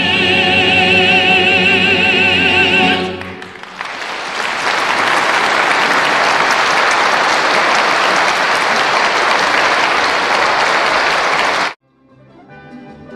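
A male soloist holds a final sung note with wide vibrato over choir and instrumental accompaniment, and the song ends about three seconds in. The concert audience then applauds steadily until the sound cuts off suddenly near the end, where faint choral music begins.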